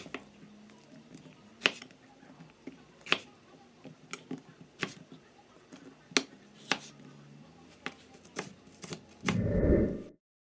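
Chef's knife chopping sweet peppers on a plastic cutting board: about eight sharp knocks of the blade hitting the board, irregularly spaced. Near the end comes a louder, duller noise lasting under a second, then the sound cuts off.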